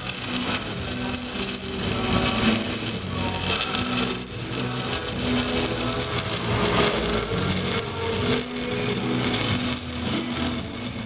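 Stick welding arc crackling and sputtering steadily as a 3.2 mm (1/8") electrode burns at 95 amps on a 160 A inverter welder, with a low hum underneath.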